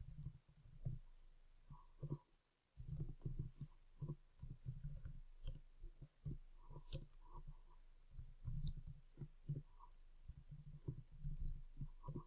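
Typing on a computer keyboard: a quick, irregular run of keystroke clicks, with a brief pause about two seconds in.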